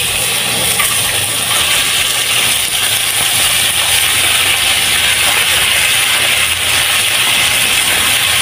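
Diced raw chicken breast sizzling in very hot oil in an aluminium pan, a steady frying hiss that starts suddenly as the chicken goes in.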